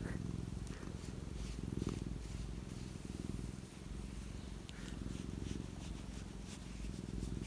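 Domestic cat purring close up: a steady low rumble that swells and eases in slow cycles with its breathing.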